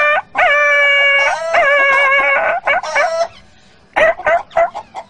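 A man's voice imitating a dog howling and whining in pain after being struck with a stick: a run of long, wailing held notes, each opening with an upward jump in pitch, then short choppy sounds about four seconds in.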